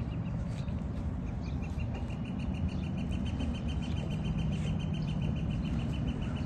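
A bird's long trill of rapid, evenly repeated high notes, about eight a second, starting about a second and a half in, over a steady low rumble.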